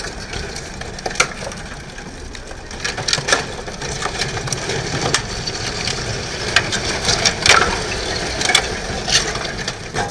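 Crunching and cracking of the wrecked Ferrari 458's broken bodywork and debris scraping over the pavement as the car is towed: a steady grinding noise with many sharp snaps scattered through it.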